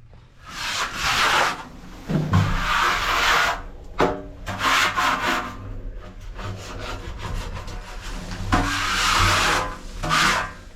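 A 10-inch spackle knife scraping oil sludge out of an oil tank, in several long, rasping strokes a second or more each, with short pauses between them.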